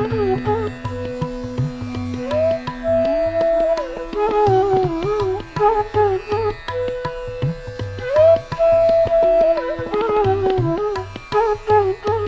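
Background Indian classical instrumental music: a melodic line of long held notes with slides between pitches, over a steady hand-drum rhythm.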